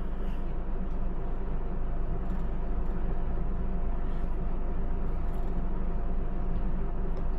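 Steady low hum and hiss of background noise, with a few faint light ticks and no clear single event.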